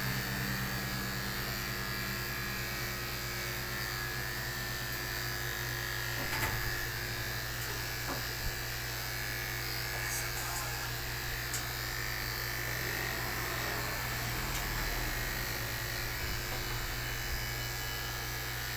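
Corded electric dog-grooming clipper running with a steady buzz as its blade cuts through the dog's matted coat. A few light clicks come through it.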